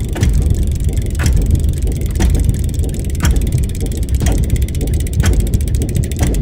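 Produced sound-design soundtrack: a deep, steady rumbling drone with a sharp clock-like tick about once a second.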